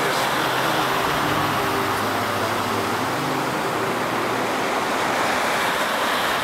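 Ocean surf breaking and washing up over a sand beach, a steady hiss of waves.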